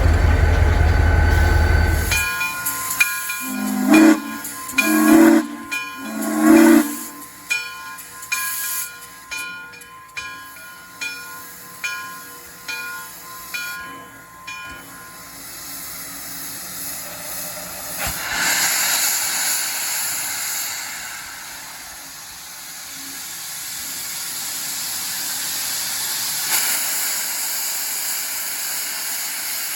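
Steam locomotive sounding three short whistle blasts while its bell rings steadily. After the bell stops, a long steady hiss of steam follows.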